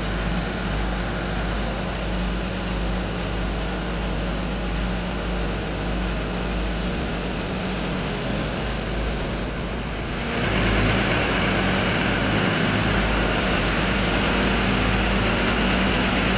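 Heavy-machinery diesel engine running steadily with a low rumble and a steady hum. About ten seconds in it gets louder and hissier.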